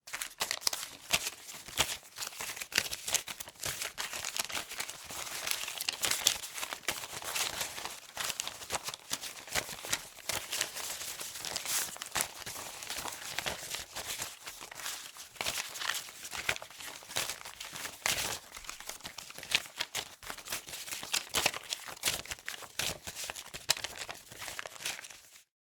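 Paper banknotes being counted by hand: a long run of quick crisp rustles and flicks as bills are handled and snapped over one another, stopping suddenly near the end.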